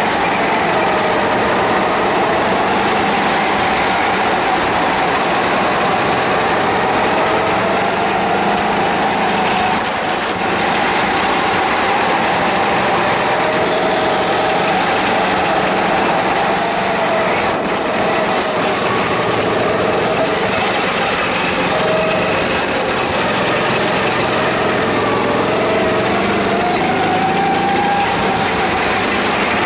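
Go-kart engine running hard, heard from on board the kart. Its note rises and falls again and again as the kart accelerates out of corners and lifts into them.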